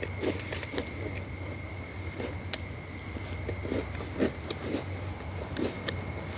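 Backyard bonfire crackling, with scattered sharp pops and soft low knocks over a steady thin high tone.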